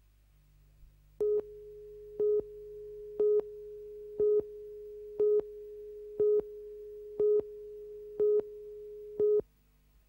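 Videotape countdown leader tone: a steady tone with a short, louder, higher pip once a second, nine pips in all, then it cuts off suddenly near the end.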